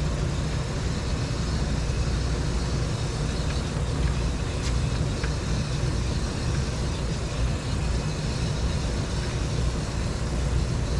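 A steady rushing noise with a heavy low rumble, unchanging throughout.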